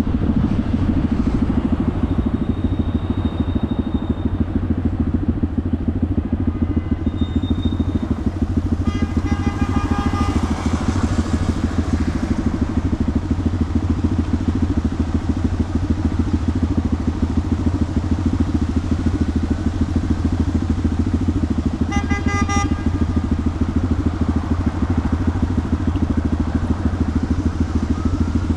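Honda Grom's 125 cc single-cylinder four-stroke engine running steadily under way, heard through a tuned Toce exhaust. A vehicle horn honks twice, about ten seconds in and again a few seconds past twenty.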